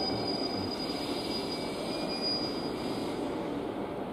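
Steady running noise of an orange-striped JR Central electric commuter train at the far platform. A thin high steady tone stops about three seconds in.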